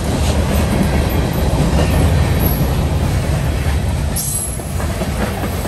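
Freight railcars rolling on the track: a steady low rumble, with a short high wheel squeal about four seconds in.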